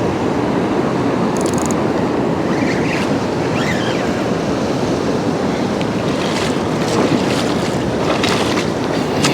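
Steady rush of flowing river water, with a few brief sharp sounds in the last few seconds.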